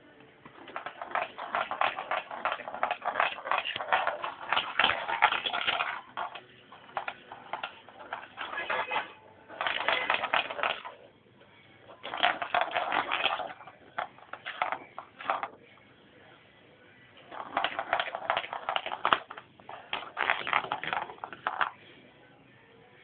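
A kitten at play, making bursts of rapid scratchy crackling and rustling, each lasting one to several seconds, with short pauses between them.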